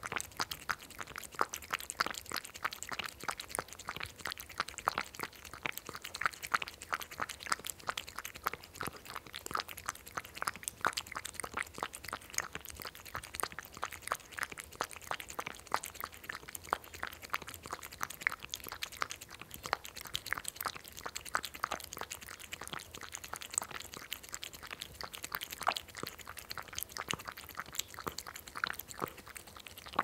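A cat lapping milk from a dish, a quick, steady run of small clicking laps several times a second.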